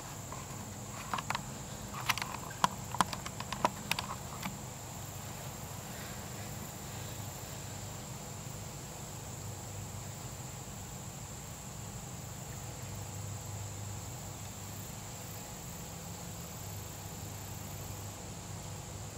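Steady, high-pitched drone of summer insects over a low hum of open-air background. A cluster of sharp clicks and taps comes in the first few seconds.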